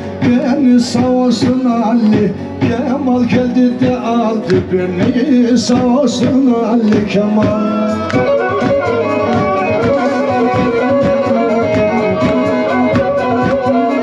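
Male voice singing a Black Sea folk song to a Karadeniz kemençe, the bowed fiddle holding a steady drone under the melody. About eight seconds in the singing stops and the kemençe plays on alone in quick, even strokes.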